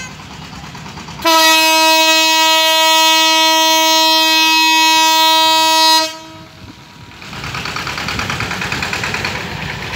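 Diesel locomotive horn sounding one long, steady blast of about four and a half seconds, starting a little over a second in. After it stops, the noise of the approaching locomotive and train grows louder.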